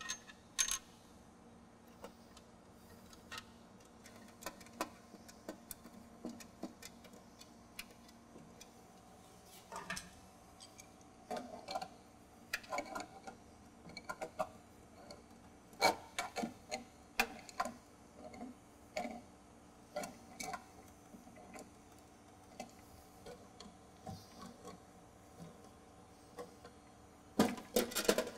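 Irregular metallic clicks and taps of hand tools on brass valve fittings as the pipe connections are tightened, with a quick run of louder clicks near the end, over a faint steady hum.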